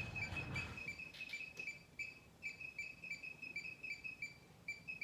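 Electronic beeping, short high-pitched beeps about four to five a second with a couple of brief pauses, along with a rustle and a few clicks of handling in the first second and a half.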